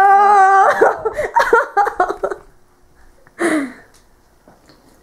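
A young woman's voice holding one long high yell for about a second, then giggling and excited babble without clear words. It drops off about two and a half seconds in, with one short falling cry about a second later.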